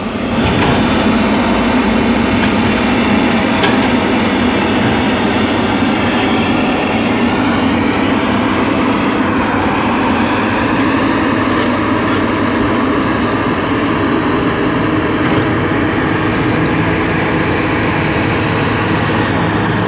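Lishide crawler excavator's diesel engine running steadily under load, a continuous loud drone while it digs and loads soil into a dump truck.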